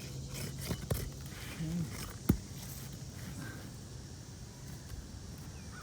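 A few sharp clicks and knocks of hand work pulling roofing nails from asphalt composition shingles, the loudest a single knock a little after two seconds in.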